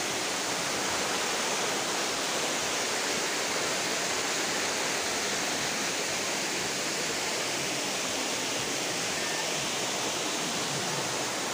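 Steady rushing of a waterfall cascading over rocks into a stream, an even hiss with no breaks.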